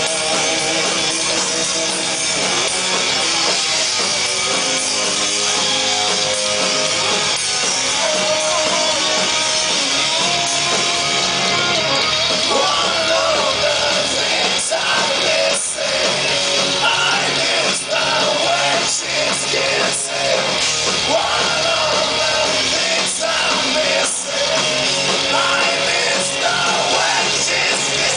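Punk rock band playing live: electric guitars and drums, with a male lead singer coming in about halfway through.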